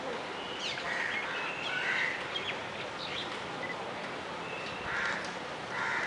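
Several birds calling in the trees: short high chirps and quick whistled glides throughout, with a few brief harsh calls about a second in, at two seconds, and near the end.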